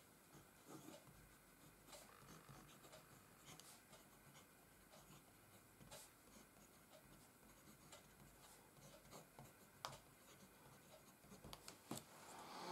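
Faint scratching of a Waldmann Xetra Vienna fountain pen nib writing across Rhodia dot-grid paper, in short irregular strokes.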